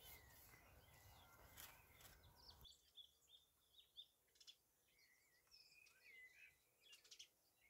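Near silence with faint birds chirping now and then, over a low hiss that drops away about two and a half seconds in.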